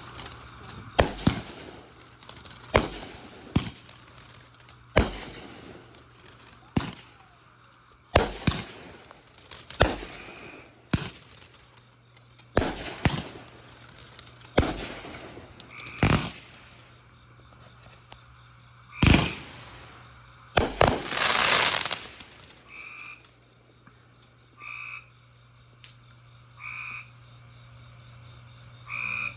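Backyard fireworks going off: a rapid string of sharp bangs, each with a short fading tail, ending in a dense crackle. After that come four short, evenly spaced chirps about two seconds apart over a low steady hum.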